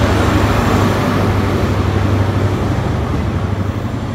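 Class 43 HST diesel power car passing close by, a loud steady low engine drone over wheel and rail rumble, fading gradually near the end as it moves away.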